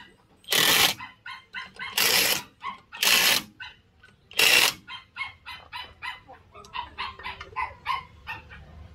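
Cordless impact wrench run in four short bursts over the first five seconds, tightening a wheel's lug nuts. Chickens cluck repeatedly throughout, more densely in the second half.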